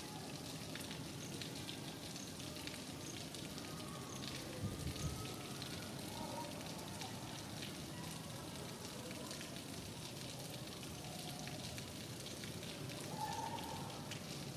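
Steady rain falling, with many small drips and patters, and a few faint bird chirps from time to time. A brief low thump sounds about a third of the way in.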